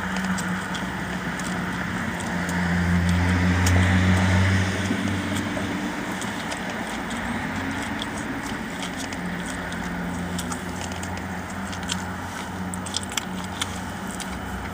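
Steady low hum of a car heard from inside the cabin, swelling louder for a few seconds about two seconds in. A few light clicks and crackles come near the end.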